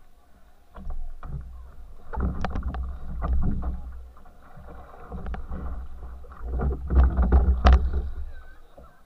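Water sloshing and splashing around the stern of a racing canoe close to the microphone, with sharp knocks on the hull, in two louder bouts: one starting about two seconds in and a stronger one from about six and a half seconds to eight seconds in.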